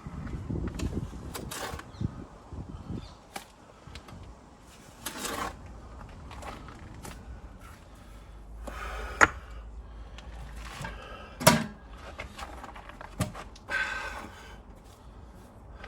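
Irregular knocks, clicks and scraping or rustling sounds, with two sharp knocks about nine and eleven and a half seconds in.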